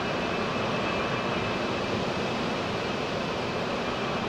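Antonov An-124-100M's four D-18T turbofan engines running as the freighter rolls along the runway after landing: a steady rushing jet noise with a thin high whine over it.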